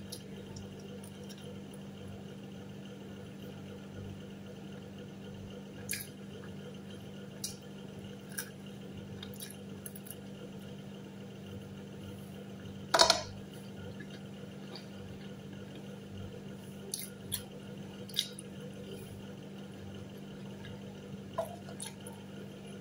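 A person chewing homemade pan pizza with a burnt crust: soft mouth clicks and smacks, and one loud crunch about halfway through as a piece of hard crust is bitten. A steady low hum runs underneath.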